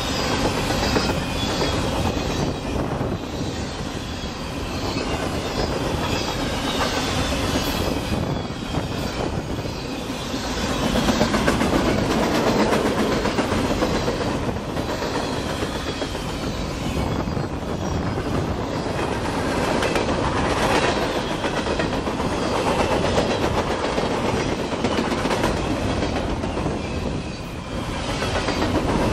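Freight train of high-sided open-top cars rolling past at close range: a steady rumble of steel wheels on rail with repeated clattering as the wheels cross the rail joints, swelling and easing slightly as the cars go by.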